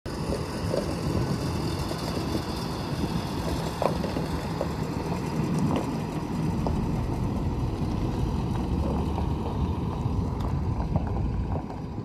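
2012 Blue Bird Vision school bus driving across a gravel lot, its engine running steadily with a low rumble and faint crunches of gravel under the tyres. It gets a little quieter near the end as the bus moves away.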